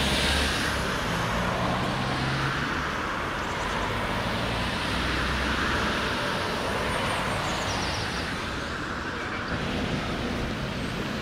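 City street traffic: motor vehicles passing, a steady mix of engine hum and tyre noise.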